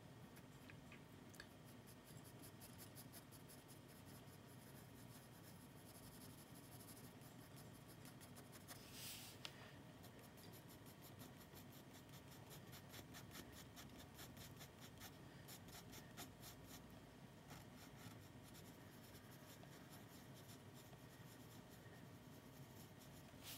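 Faint pencil scratching on sketchbook paper in many quick, short strokes, with one longer stroke about nine seconds in.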